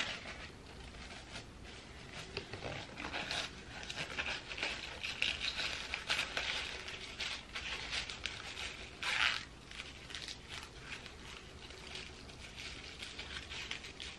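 Rustling and scraping of an elastic edge wrap strip being pulled over the head and pressed along the hairline by fingers, fabric rubbing on gelled hair, with a louder rustle about nine seconds in.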